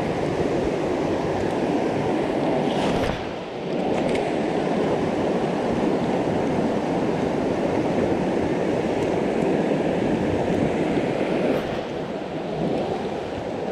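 Shallow rocky creek rushing over stones close by, a steady rush of water, with a brief swish about three seconds in.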